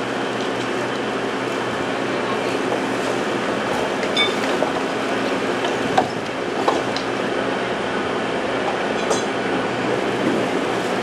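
Steady mechanical rumble and hiss of industrial machinery, with a few sharp metallic clinks and knocks.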